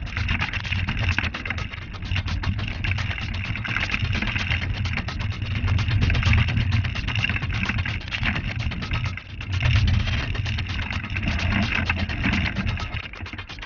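Mountain bike riding down a rocky dirt singletrack: knobby tyres rumbling over gravel and stones, with dense rapid rattling and clicking from the bike, and a brief lull a little past nine seconds.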